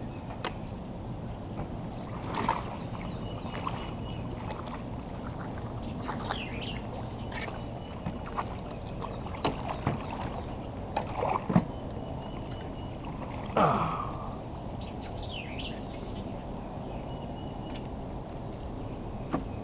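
Small fishing boat on the water: a steady background hiss, with a few short knocks and scrapes against the boat, the loudest about two-thirds of the way through.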